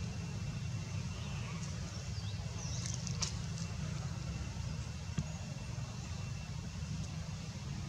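Steady low outdoor rumble, with a few faint high chirps and a soft click about three seconds in and another click about five seconds in.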